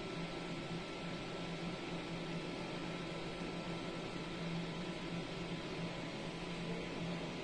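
Steady background hum and hiss with a faint high, even whine, like a running fan or electrical equipment; no distinct events.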